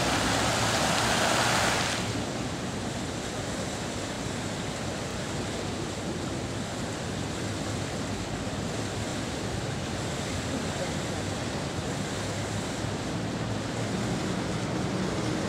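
Fountain water jets spraying and splashing down onto the lake, cutting off about two seconds in. A softer, steady rush of outdoor background noise follows.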